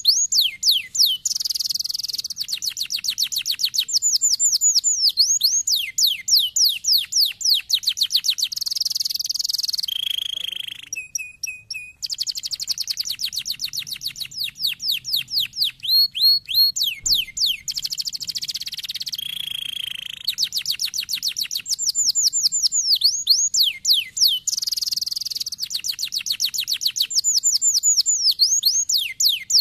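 Domestic canary song: long fast rolls of repeated down-slurred whistles alternating with buzzy trills, broken about ten seconds in by a couple of short steady whistles before the rolls resume.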